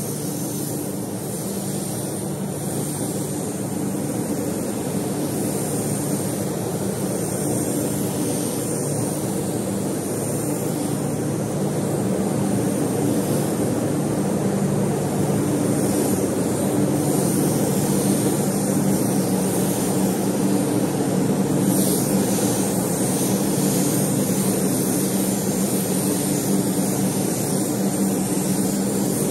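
Spray-painting equipment running steadily, a whirring drone with an air hiss over it, while a base coat of yellow paint is sprayed.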